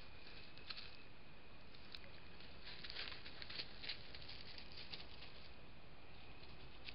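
Crested porcupine walking through dry leaf litter right beside a trail camera: a run of short rustles and crackles for a couple of seconds, over the camera microphone's steady hiss.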